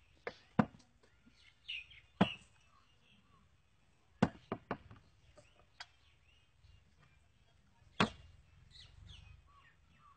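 A scattered series of sharp knocks and clicks, about eight in all, most of them single and a few in quick succession, with faint high chirps between them.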